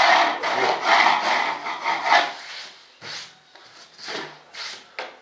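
Back-and-forth rubbing strokes of a hand tool working balsa wood on a foam wing core, quick and dense for about two seconds, then a few slower, quieter strokes.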